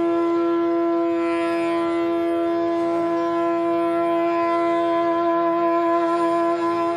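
Bansuri bamboo flute in Hindustani classical music, holding one long steady note over a soft drone.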